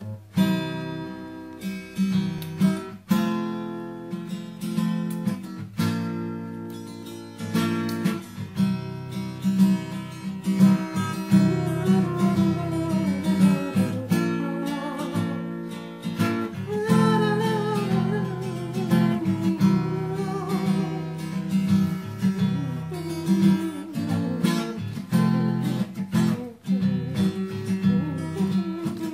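Acoustic guitar music, strummed and picked chords. A second melody line with gliding notes comes in about twelve seconds in.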